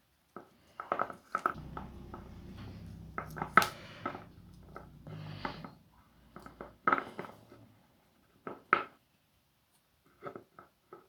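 Close-up handling of bonsai wire and a small cypress's branches: irregular small clicks and short rustles, with a low rumble through the first half.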